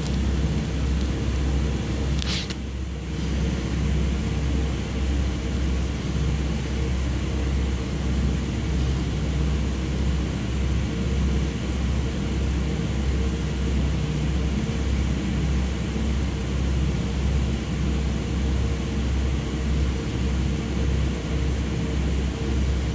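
Low, evenly pulsing rumble of military rotorcraft running on a helipad: MV-22 Osprey tiltrotors and a VH-3 helicopter, heard through window glass. A brief scratchy noise about two seconds in.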